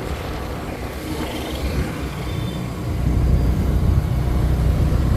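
Passing vehicle traffic: a steady low rumble that grows louder about three seconds in.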